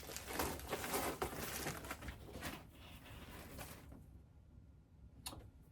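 Rustling and shuffling of T-shirts being handled, with many small clicks and crinkles. It dies down about four seconds in, and a single sharp click comes near the end.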